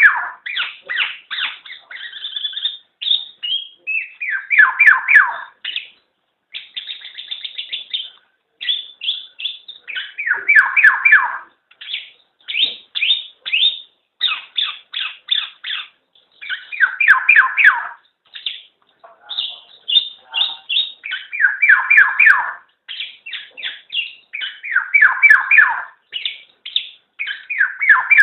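Black-naped oriole (kepodang) calling: bursts of rapid short notes, each burst about a second long, repeating every one to three seconds.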